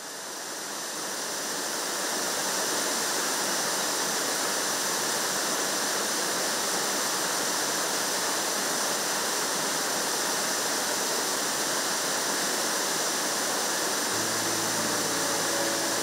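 A four-tier, 50-metre waterfall rushing steadily, the sound of falling water fading in over the first couple of seconds. Soft music comes in near the end.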